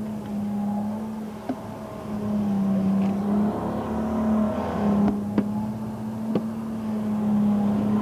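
Jet boat engine running at a fairly steady pitch, with small rises and dips as the boat works through a slalom course. A few sharp clicks come near the middle.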